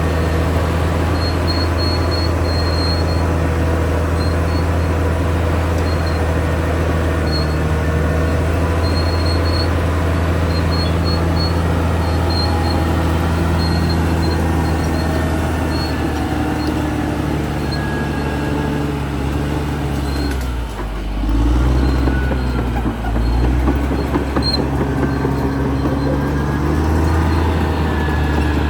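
Caterpillar D6R XL bulldozer's diesel engine running steadily under work, with short high squeaks from the tracks recurring. About two-thirds of the way through, the engine note dips and shifts briefly, then settles again.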